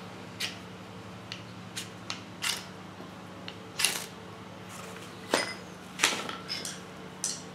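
A Morakniv Black knife's spine scraped down a ferro rod, a dozen or so short, sharp strikes at uneven intervals. The strikes throw sparks onto char cloth until it catches an ember.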